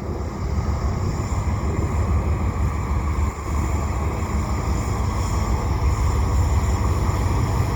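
GE ET44AC diesel locomotive running as the rear distributed-power unit of a double-stack freight train, a steady low rumble that grows slightly louder as it comes closer.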